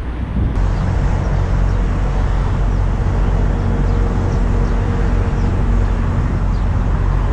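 Steady low rumble of wind buffeting the microphone, mixed with road traffic noise.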